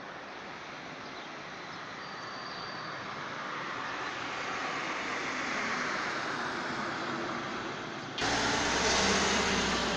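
Street traffic: tyre and engine noise of vehicles passing on the road, swelling gradually over several seconds. About eight seconds in the sound changes abruptly to louder traffic noise.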